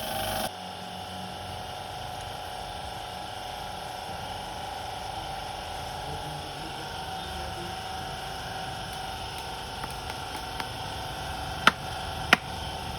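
A steady hum made up of several constant tones over a low noise, with two or three sharp clicks near the end.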